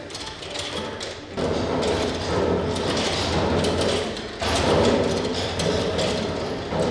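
Wooden drumsticks on a reconstructed Leonardo da Vinci mechanical drum beating a skin drum head in rapid strikes, with the wooden pegged cylinder and gearing clattering as the machine is worked by hand. The beating gets louder about a second and a half in and again past the middle.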